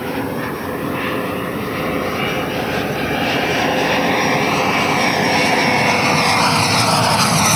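100 mm WeMoTec Midi EVO electric ducted fan of a Black Horse Viper XL jet model in flight: a rushing roar with a fan whine that bends slowly in pitch, growing steadily louder as the jet comes closer.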